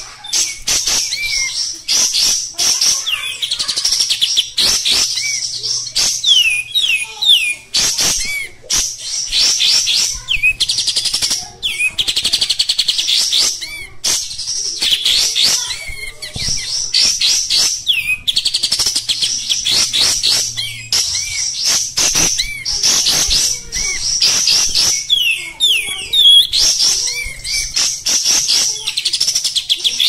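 Kapas tembak bulbul singing vigorously: a near-continuous run of rapid, harsh chirps and trills, broken only by brief pauses.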